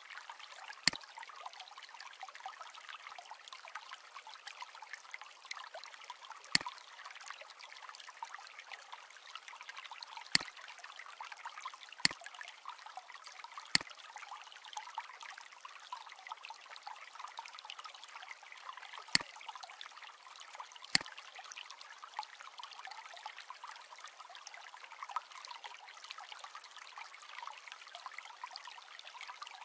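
Seven sharp computer mouse clicks spaced unevenly, a few seconds apart, over a steady hiss.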